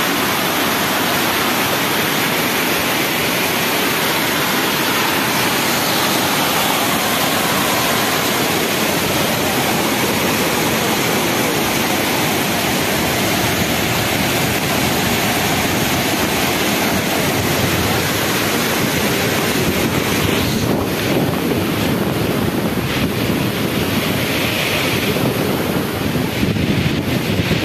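Muddy, rain-swollen floodwater rushing over rocks and pouring over a spillway: a loud, steady rush of water. In the last several seconds the rush thins and gusts of wind buffet the microphone.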